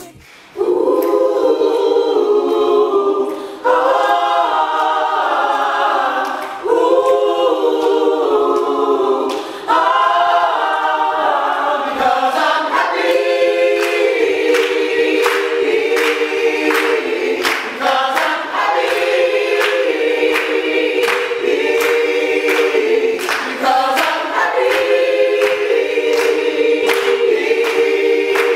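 A mixed group of voices singing a cappella, held chords in phrases of about three seconds. About halfway through, steady hand claps on the beat join the singing.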